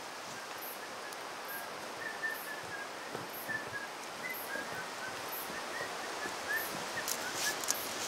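Woodland ambience: a steady hiss, with a bird calling a long string of short notes and a faint high chirp repeating regularly. A few light clicks come near the end.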